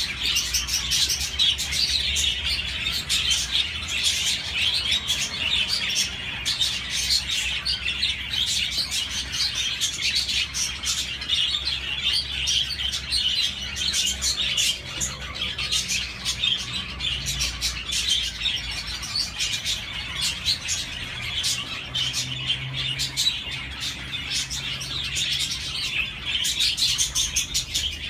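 Budgerigars chirping and warbling in dense, unbroken chatter with quick clicks, over a steady low hum.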